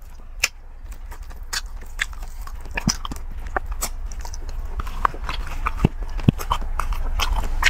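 Close-miked chewing of crispy deep-fried pork knuckle: irregular crunches, crackles and wet mouth smacks, getting busier and louder toward the end.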